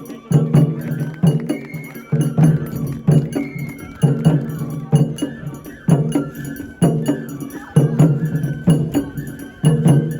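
Japanese festival music (matsuri-bayashi): heavy taiko drum beats about once a second, a clanking hand gong or bell with sharp clicks between the beats, and a high bamboo flute playing held notes above.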